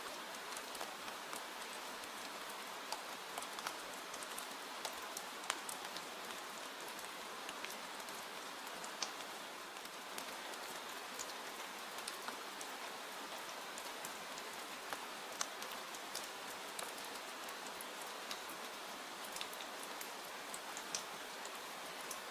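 Steady rain hiss with many sharp ticks and pops scattered irregularly throughout.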